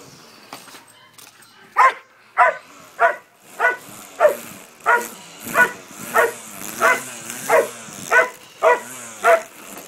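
Dog barking in a steady run of about thirteen barks, a little under two a second, starting about two seconds in, with a steady high hiss beneath.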